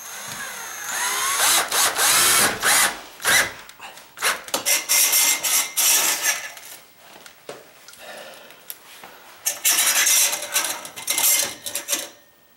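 Cordless drill driving square-drive drywall screws through a grab bar's mounting flange into the wall, the motor whine rising as it spins up. It runs in three main bursts of a few seconds with short spurts between, and stops abruptly near the end.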